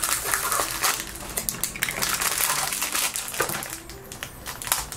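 Foil blind-bag wrapper crinkling and crumpling in the hands, with scissors cutting into the foil near the end.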